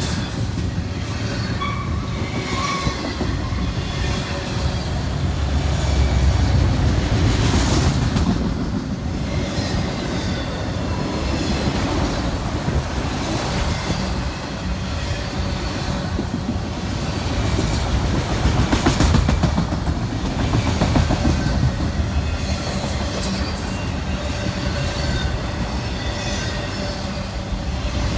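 Freight train cars rolling past, wheels clicking steadily over rail joints under a continuous rumble, with a brief wheel squeal about two seconds in.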